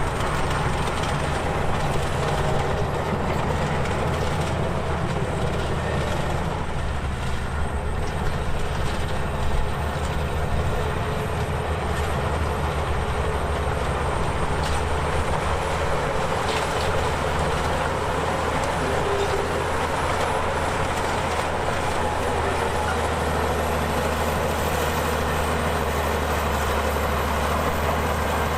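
Komatsu crawler bulldozer's diesel engine running steadily under load, with its steel tracks clanking and squeaking as it works soil.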